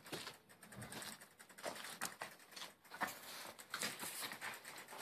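Irregular clicking and rattling of a loaded bicycle being wheeled by hand, its rear hub ticking and loose gear knocking, with footsteps.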